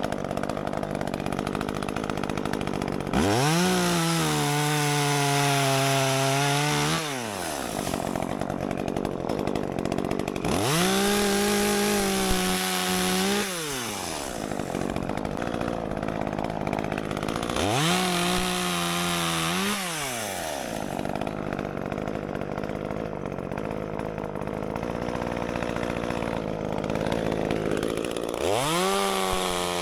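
Echo CS-355T top-handle two-stroke chainsaw idling and revved to full throttle four times for a few seconds each, cutting into wood. Each burst rises quickly, sags a little under load, then drops back to idle; the last begins near the end.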